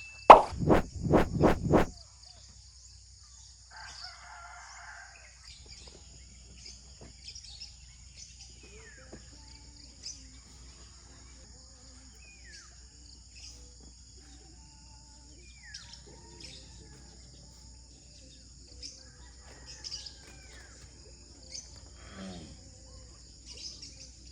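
Outdoor ambience: a steady high drone of insects such as crickets, with short chirping bird calls scattered through it. A quick run of about five loud knocks sounds at the very start.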